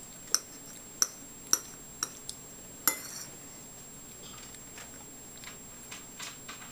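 Cutlery clinking against a dish as food is scooped: about six sharp clinks in the first three seconds, then a few fainter taps.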